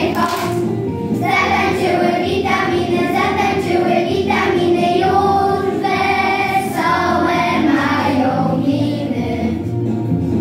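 A group of young children singing a song together, with steady musical accompaniment underneath.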